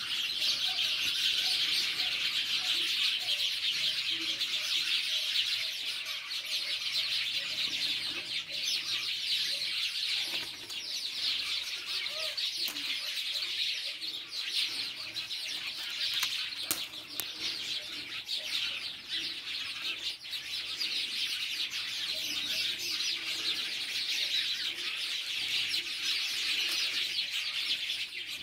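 A dense, continuous chorus of small birds chirping, with short low calls repeating underneath.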